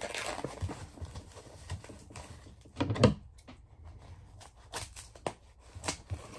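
Scattered rustling and light knocks of items and packaging being handled, with one louder knock about three seconds in.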